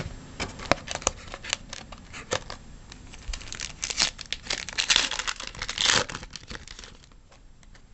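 A baseball card pack being handled: crinkling and tearing of the wrapper mixed with the flick and snap of cards, a dense run of sharp clicks and rustles that stops about seven seconds in.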